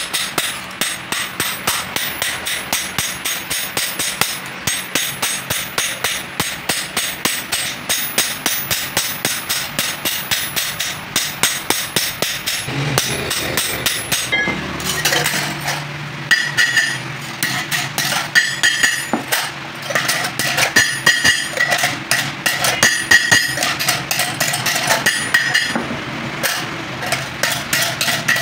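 Hammer striking metal in a quick steady rhythm, about three blows a second; about halfway through, the blows turn uneven and the struck metal rings.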